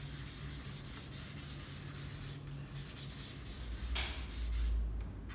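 Soft pastel stick scraping and rubbing across pastel paper in repeated short strokes, a dry scratchy hiss. A low rumble rises near the end.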